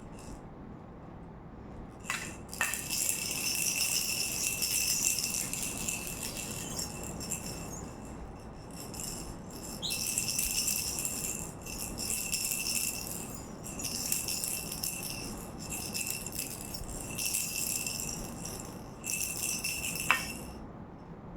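A toy rattle shaken in repeated stretches of a second or two with short breaks. It gives a bright rattling hiss with a thin ringing tone, starting about two seconds in and stopping shortly before the end.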